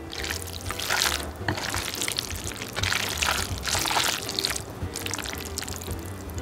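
Chopsticks stirring and lifting saucy mala xiang guo, a wet squelching and rustling of oily noodles and vegetables in four or so bursts of about a second each.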